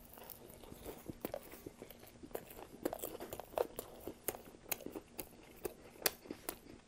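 Close-miked biting and chewing of a toasted steak-and-cheese sub on crusty herb-and-cheese bread: soft crunches of the crust and frequent sharp, wet mouth clicks, several a second.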